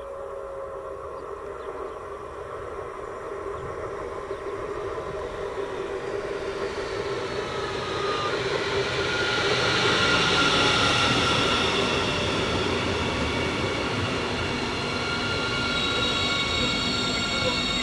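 An electric multiple unit passenger train approaching and passing close by: wheel-on-rail rumble grows steadily louder for about ten seconds, joined by the whine of the electric traction at several steady pitches, and stays loud as the carriages go by.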